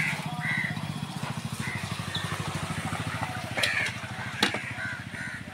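A steady, low, engine-like throb runs throughout. Over it a bird caws several times, and there are two sharp knocks, one after about four and a half seconds and one just after the end.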